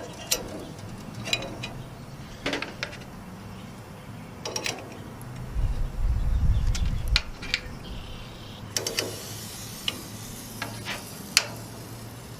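Stainless steel skewers clinking and knocking against a metal kebab rack as loaded kebabs are set on it, in about ten separate sharp clinks. A low rumble comes in around the middle, and a steady hiss starts about two-thirds through.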